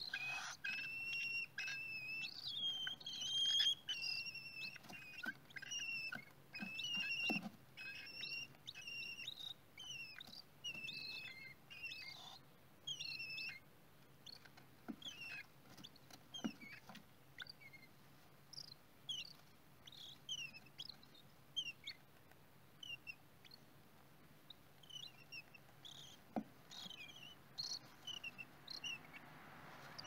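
Cockatiel chicks chirping in a nest box: many short, high chirps in quick succession, busy in the first half and sparser later, with a few soft bumps.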